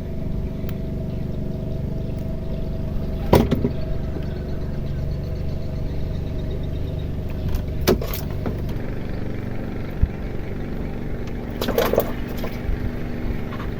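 Small boat engine running steadily, with three short knocks or clatters, the loudest about three seconds in and the others near eight and twelve seconds.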